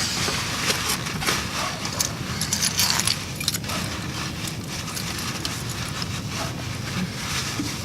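Light clinking and rattling, most of it in the first few seconds, over a steady low hum.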